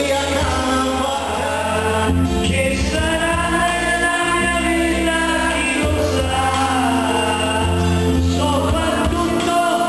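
A man singing karaoke into a microphone over a backing track with a steady bass line, holding long notes.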